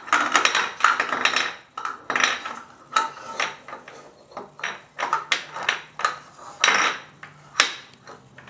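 Irregular clattering and knocking of small hard objects, several sharp knocks a second with short pauses between.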